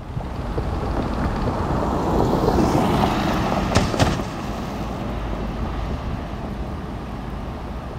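Building demolition site: wind on the microphone over a steady low rumble of machinery, swelling in the middle, with two sharp knocks in quick succession about four seconds in.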